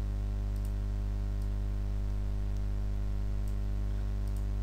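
Steady low hum with a stack of overtones, and a few faint, scattered computer-mouse clicks as layers are selected.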